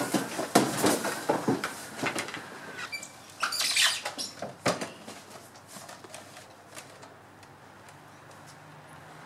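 Quick knocks, creaks and footsteps on the wooden planks of a garden treehouse, with clothing rustling, as someone clambers out; they die away after about five seconds.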